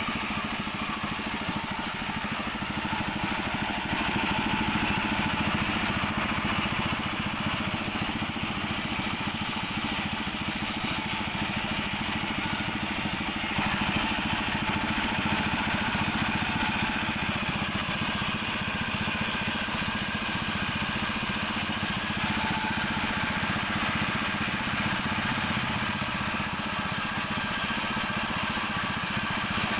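Sawmill machinery running steadily while sawing small mahogany logs, a continuous mechanical drone whose higher hiss shifts a few times.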